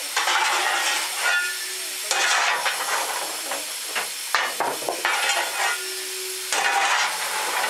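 A coal shovel scraping into coal in a steam locomotive's cab as the fireman fires the engine, four scrapes about two seconds apart, over a steady hiss of steam.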